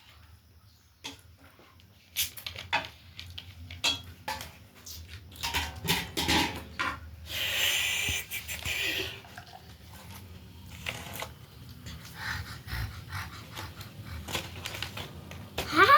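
Plates, bowls and cutlery clinking and knocking in scattered strokes, with a noisy rasp lasting about two seconds midway. A cat meows right at the end.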